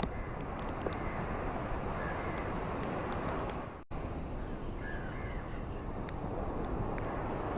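Steady rainfall hiss with scattered faint drip ticks, and a few short bird calls about two and five seconds in. The sound cuts out for a split second just before four seconds in.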